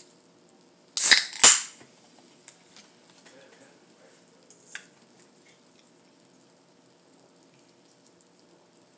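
Two sharp clatters of utensils against a plate about a second in, then a few faint clicks.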